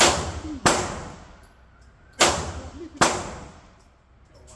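Four shots from a 9mm Glock-clone pistol, two in quick succession at the start and two more about two and three seconds in, each sharp report ringing away for about a second.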